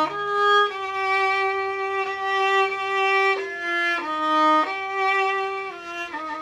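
Solo violin playing a slow melody of long bowed notes, one of them held for about three seconds near the start.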